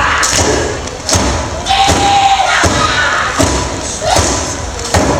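Loud, sharp percussive thumps at a steady beat, about one every three-quarters of a second, from a Polynesian dance performance, with one long shouted call about two seconds in and audience noise underneath.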